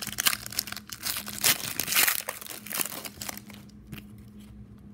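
Foil trading-card pack wrapper crinkling and tearing as the pack is ripped open: a dense crackle for about three and a half seconds that then dies down to a few faint rustles.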